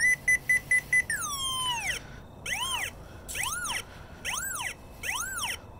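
Pipehorn 800-HL locator's audio tone as the receiver traces a buried wire carrying an induced 480 kHz signal. It starts as rapid beeps at one pitch, about five a second, then glides down and becomes a tone that rises and falls in pitch about once every 0.8 s, four times, as the receiver sweeps back and forth over the line.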